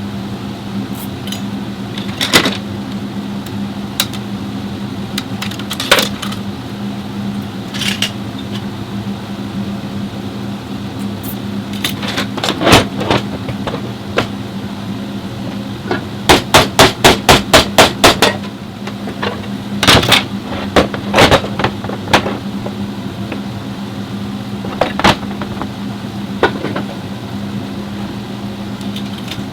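Sharp hammer-like knocks over a steady low hum, scattered singly and including a quick run of about a dozen blows in under two seconds about halfway through.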